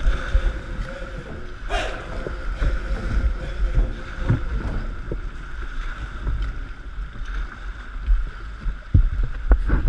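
A kayak running small class one to two rapids, heard from a camera on its deck: a steady rush of whitewater with paddle strokes splashing now and then, and low wind buffeting on the microphone.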